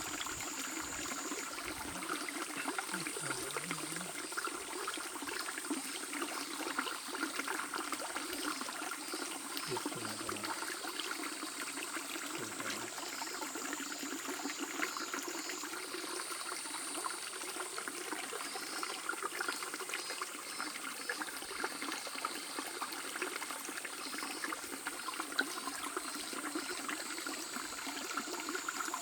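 Shallow mountain stream babbling steadily over stones, a continuous trickling and splashing of water. A faint steady high-pitched tone sits above it, stepping up and down in pitch a few times.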